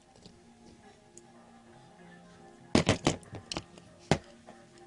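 Several sharp clicks and taps of a die-cast toy car being handled, a quick cluster about three seconds in and a couple more soon after, over faint background music.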